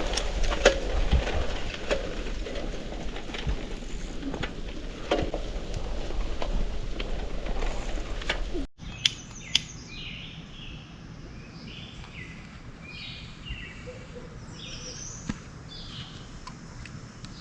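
Small birds chirping in short, repeated high notes over a quiet outdoor background. This comes after a sudden cut from a louder stretch of low rumbling noise scattered with clicks and knocks.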